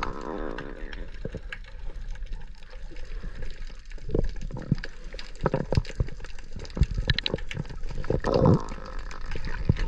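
Sea water sloshing and gurgling around the camera while snorkelling, with irregular splashes and knocks.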